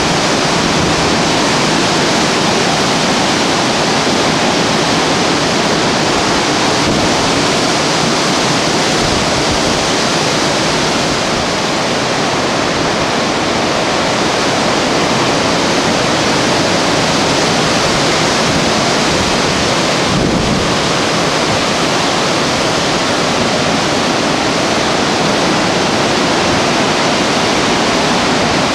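Storm-force wind rushing through the treetops, a loud, steady roar of noise with no let-up.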